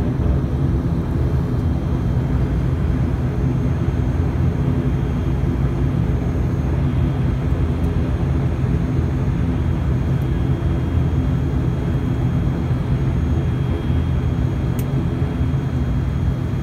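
Steady engine rumble heard inside an airliner's cabin as the plane taxis on the ground, with a faint high whine held over it.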